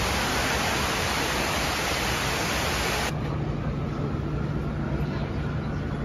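Steady rush of water cascading down the walls of the 9/11 Memorial reflecting pool. About three seconds in it cuts abruptly to quieter street sound with a steady low engine hum.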